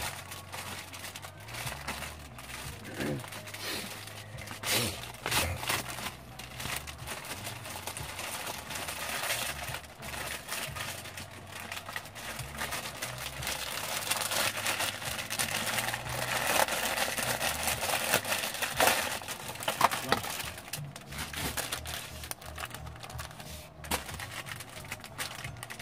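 Plastic packaging crinkling and rustling in the hands, with scattered small clicks of handling. It is busiest about two-thirds of the way through.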